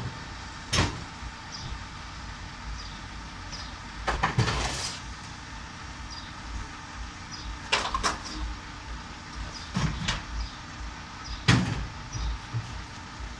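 Rear-loading garbage truck idling while wheelie bins are handled at its tail, with several sharp clanks and bangs of the plastic bins against the lifter. There is a longer rattle about four seconds in and the loudest bang near the end.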